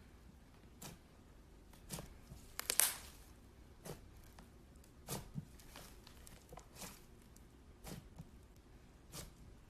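Fluffy slime being squished, making short, faint squelches and crackles about once a second, the loudest a little under three seconds in.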